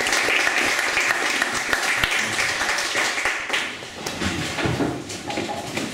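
Audience applauding, a dense patter of many hands clapping that dies away after about three and a half seconds.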